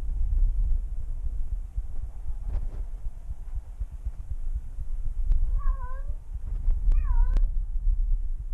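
A cat meows twice, two short wavering calls about a second apart, a little over halfway through. Under them runs a steady low rumble of handling noise from the camera worn on the cat, with a few faint clicks.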